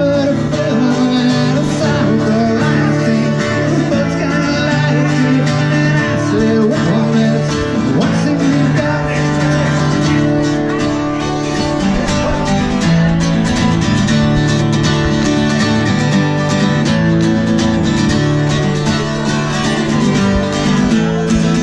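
Country-style music led by guitar, with a steady beat.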